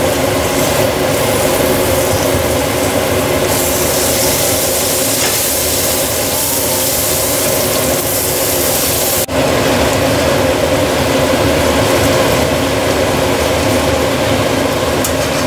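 Onions, spices and chopped tomatoes sizzling in a frying pan and being stirred with a metal spatula, over a steady mechanical hum. The sizzle grows brighter and louder from about three and a half seconds in, and the sound drops out briefly about nine seconds in.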